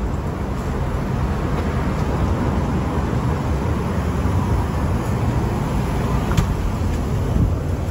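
Steady vehicle and road traffic noise, an even rumble and hiss, with a short sharp click about six seconds in.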